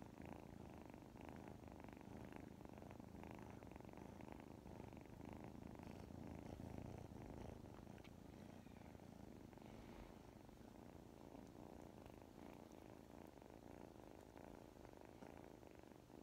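A black-and-white kitten purring softly and steadily while it sleeps.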